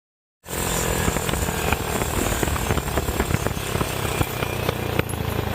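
Go-kart engine running steadily at speed, with a noisy rush over it. It starts abruptly about half a second in, after a moment of silence.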